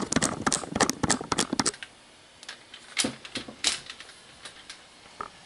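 Handling noise from a camera being taken off its mount and moved: a quick run of clicks and knocks for the first couple of seconds, then a few scattered clicks.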